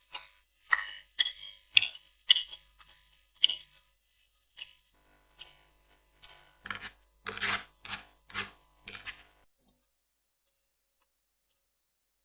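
Close-miked mouth sounds of eating spicy noodles: a quick run of short chewing sounds, a few longer and louder ones about two-thirds of the way through, stopping about three-quarters of the way in.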